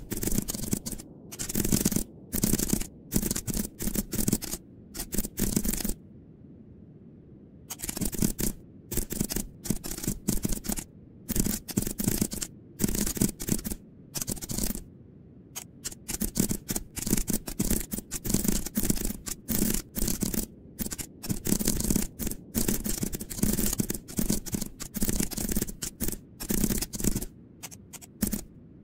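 Computer keyboard being typed on in fast runs of keystrokes, with two brief pauses, about six seconds in and again about fourteen seconds in.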